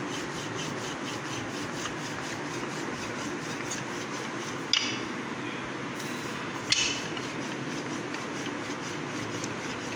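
Wooden rolling pin rolling paratha dough back and forth on a marble countertop: a steady rubbing, with two sharp knocks about five and seven seconds in.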